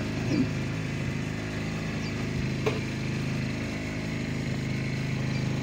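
A fishing boat's engine running steadily, with a single short click about two and a half seconds in.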